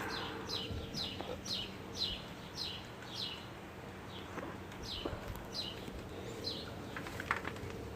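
A bird calling over and over in short, high chirps that slide downward in pitch, about two a second, with a brief pause midway.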